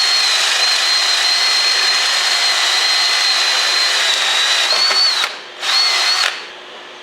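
Electric drill running at full speed with a high, steady whine, its pitch sagging slightly under load; it stops about five seconds in, then runs again briefly.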